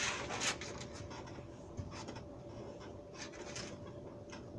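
A few brief scratching and rustling sounds, the loudest right at the start, over a faint steady hum.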